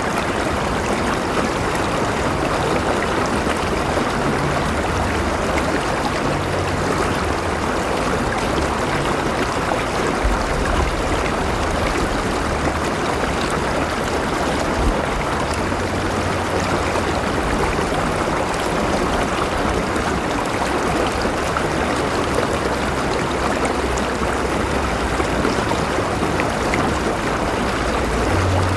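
Flowing river water rushing and burbling steadily over rocks, with a low rumble underneath.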